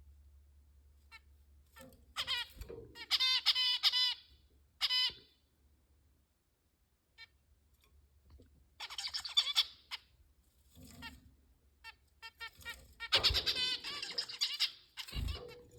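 Zebra finches calling: runs of quick repeated pitched notes, about two seconds in, again near the middle, and a longer burst near the end, with small clicks and taps in between.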